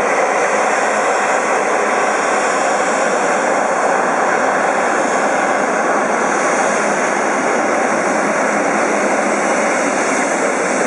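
Boeing 777-300ER's twin GE90 turbofan engines at taxi power as the airliner taxis close by: a steady, loud jet rush with no change in pitch.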